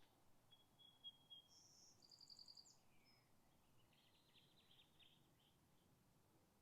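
Faint songbird calls: a high held whistle, then a quick trill and a downslurred note, followed by a run of short chirps about four seconds in.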